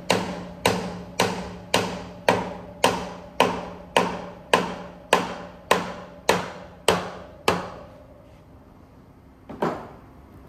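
Sharp strikes repeated at an even pace, a little under two a second, each ringing briefly, over a steady low hum. Both stop about eight seconds in, and one more strike comes near the end.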